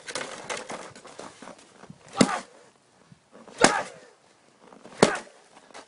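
Plastic snow shovel struck hard down onto packed snow three times, sharp chopping hits about a second and a half apart.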